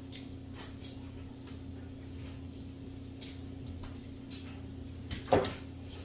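Small clicks and scrapes of hands working on electrical wire and parts, over a steady low hum. About five seconds in comes a louder short knock, like a hard plastic part being picked up or set down.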